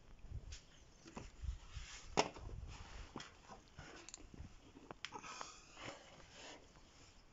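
Scattered light clicks and knocks with low rumbling handling noise from a handheld phone being moved about, the sharpest click about two seconds in, and a brief scraping rustle a little after five seconds.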